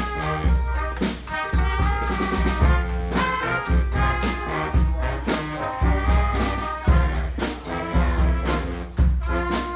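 Street brass band playing an upbeat tune live, with trumpets and trombones over a steady beat of drums and a low bass line.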